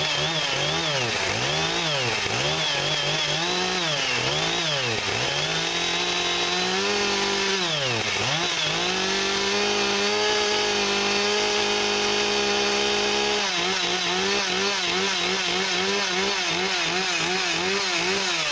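Husqvarna 570 X-Torque chainsaw just after a cold start in sub-freezing weather, revved up and down several times and then held at high speed. About two-thirds of the way through its speed starts to waver rapidly, and the revs fall away at the very end. The cold engine has not yet settled to idle.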